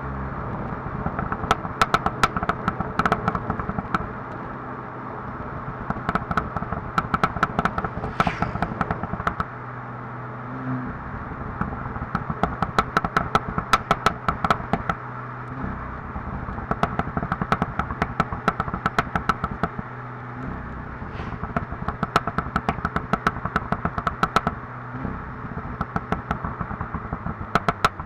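SEAT Leon Cupra 290's turbocharged 2.0-litre four-cylinder, breathing through a sport exhaust with the middle silencer deleted, crackling and popping on the overrun: about six bursts of rapid pops as the throttle is lifted around 4,000 rpm, with short throttle blips between them.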